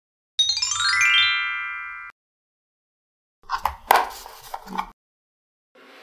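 A quick descending run of ringing chime notes that hangs briefly and cuts off sharply, a chime sound effect. About a second later comes a burst of sharp clicking and rattling: small magnetic steel balls snapping and clattering together.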